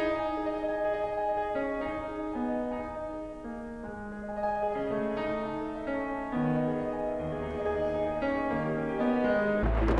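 Slow piano music, single notes and chords ringing on over a bass line that steps downward. Just before the end a rushing noise with a low rumble comes in.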